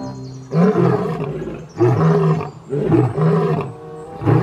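Male lion roaring: a run of about six short, loud roars, less than a second apart.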